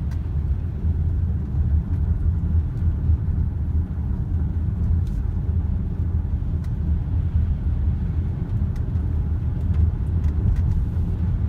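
A car driving at steady speed, heard from inside the cabin: a constant low rumble of tyres and engine.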